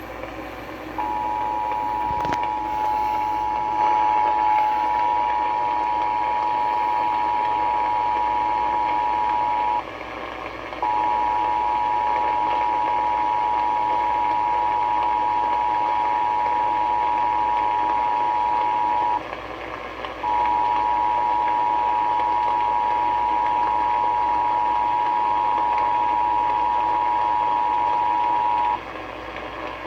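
Emergency Alert System two-tone attention signal from a radio broadcast: two steady tones sounding together in three long stretches of about nine seconds each, with two short breaks. A steady hiss runs underneath.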